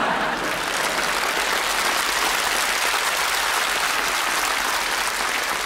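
Studio audience applauding, steady clapping throughout.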